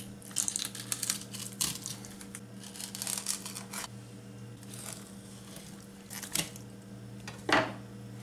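Fillet knife slicing and scraping through a flounder's skin and rib bones on a wooden cutting board, heard as bursts of short crackling, scratching strokes with a couple of sharper strokes near the end. A steady low hum runs underneath.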